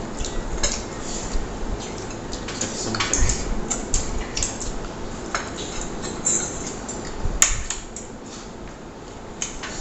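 Spoons and forks clinking and scraping against plates as food is eaten, in scattered small clicks, with one sharper clink about seven seconds in.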